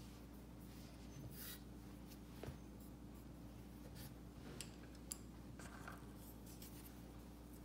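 Faint, scattered scratching and light clicks of a paintbrush and fingers working on a painted porcelain tile, over a steady low hum.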